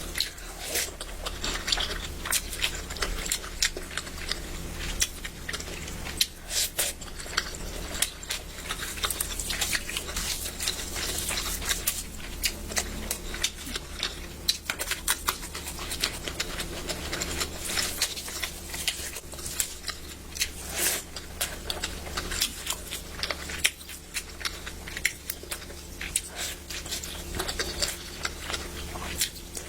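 Close-up eating sounds: chewing and mouth clicks coming irregularly, several a second, over a steady low hum.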